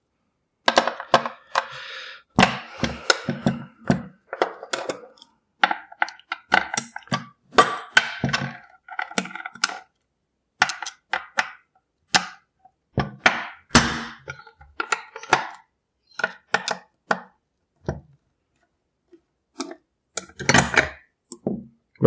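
Screwdriver work on a steel lock case: irregular clicks, taps and short scrapes of the tool on screws and sheet metal, with metal clatter as the cover plate of the multi-point lock is taken off.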